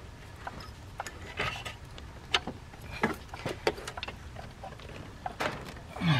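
Scattered clicks, knocks and short scrapes of a flat-blade screwdriver working around the edge of a coolant hose to pry it off its fitting on the water pump housing, with a short low falling sound near the end.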